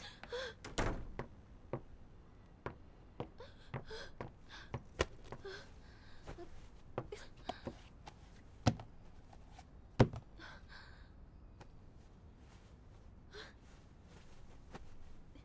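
Scattered knocks and thuds of people moving about in a small room, with two loud thuds about nine and ten seconds in, and short breaths and gasps between them.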